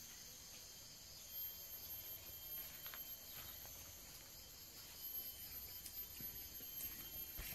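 A steady, faint chorus of insects buzzing in the undergrowth. A few soft knocks and rustles come through it, from footsteps in the grass as someone walks off.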